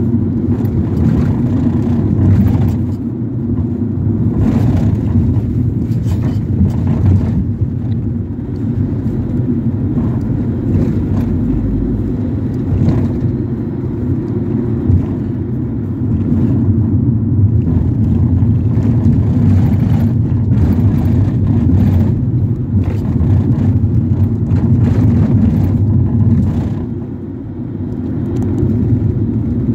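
Inside a moving Ford Transit minibus: steady low engine and road rumble, with scattered rattles and knocks over it. The rumble eases briefly near the end, then picks up again.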